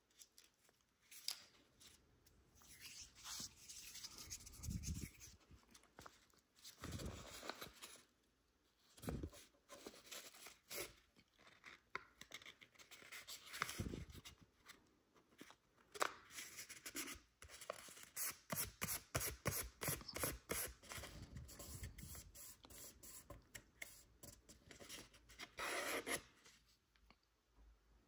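A sheet of origami paper being folded and creased by hand: rustling and crinkling with sharp crackles, and a quick run of short rubbing strokes in the middle as a crease is pressed flat.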